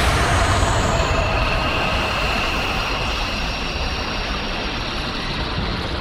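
Designed giant-monster sound effect for Cthulhu: a dense, rumbling wash of noise that starts suddenly, with faint thin high whining tones over it, slowly fading.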